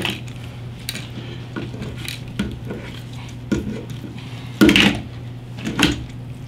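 Irregular clicks, clinks and knocks from handling a handlebar switch housing and its wiring against the handlebar and tabletop while the wires are pulled through the bar, with the loudest knocks about three-quarters of the way through.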